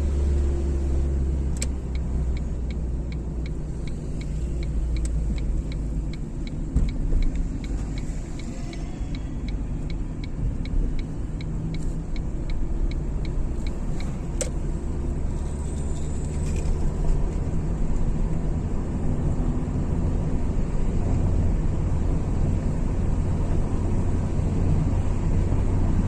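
Car being driven, heard from inside the cabin: a steady low engine and road rumble. A light, fast, regular ticking runs over it for about ten seconds in the first half.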